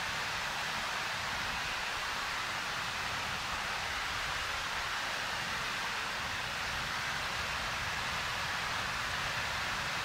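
Waterfall pouring into its plunge pool: a steady, even rush of falling water with no breaks.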